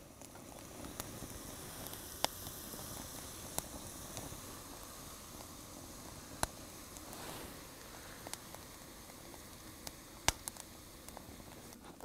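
Lotus root slices deep-frying in oil in a skillet: a steady sizzle with a few sharp clicks spread through it.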